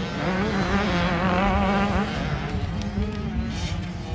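Several dirt bikes racing on a motocross track, their engines revving with a wavering pitch that rises and falls as they ride. Under them runs a steady lower drone.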